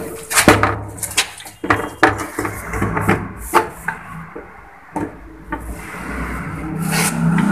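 Plastic toilet cistern being handled and pressed against a tiled wall: a series of sharp knocks and clatters with some rubbing. A steady low hum builds near the end.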